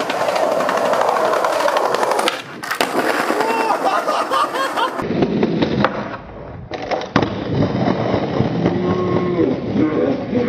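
Skateboard wheels rolling over concrete pavement, with several sharp clacks of the board hitting the ground in the first few seconds. From about halfway on, voices call out over the rolling.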